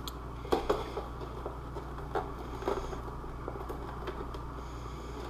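A few faint, short taps and rustles of handling over a steady low hum.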